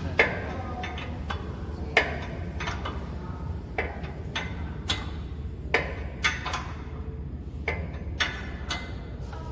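Irregular clicks and knocks of metal tools and parts being handled during disassembly of a slitting machine's unwinder, about ten in all, some ringing briefly, over a steady low hum.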